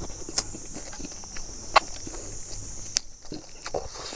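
Close-up eating by hand: chewing a mouthful of rice with a few sharp lip-smacks and clicks, then fingers pulling apart roast chicken on the plate.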